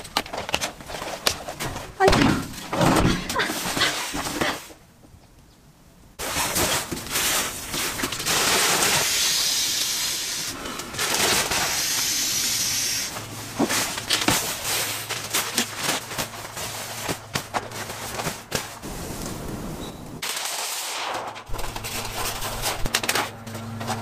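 Sharp clicks, snaps and knocks of a folding camp cot's metal legs being fitted and locked into its frame, with rustling of the cot's fabric. A stretch of rustling bedding follows.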